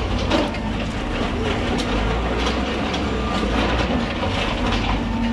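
Backhoe loader's diesel engine running under load as its front bucket breaks into a burning structure, with scattered cracks and knocks of debris over a steady low rumble.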